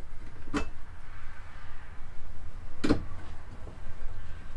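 Two short clicks of a bathroom medicine cabinet door, about two seconds apart, as its doors are opened and shut, over a steady low hum.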